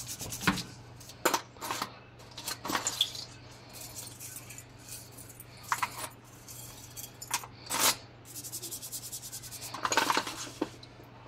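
Silver rings, earrings and a bangle clinking against each other and the plastic tub as they are handled in toothpaste water: a scatter of separate sharp clicks. A short spell of toothbrush scrubbing comes near the end.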